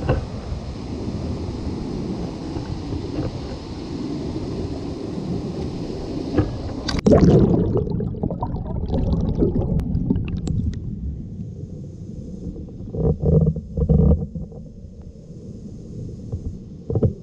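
Mountain-stream water heard through a GoPro: a steady rush of noise, then a loud splash about seven seconds in, after which the sound turns dull and muffled as if underwater, with a few low thumps near the end.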